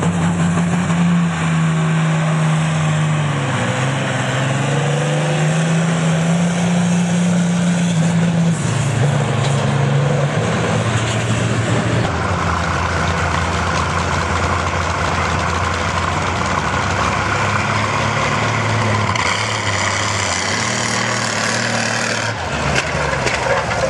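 Pulling tractors' engines running hard under load while dragging a weight-transfer sled, the engine speed rising and falling. About halfway through, a second tractor's engine takes over.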